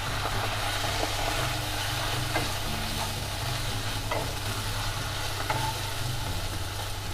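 Fried onion and ginger paste sizzling in hot oil in a pan while being stirred, with a few light scrapes against the pan. A steady low hum runs underneath.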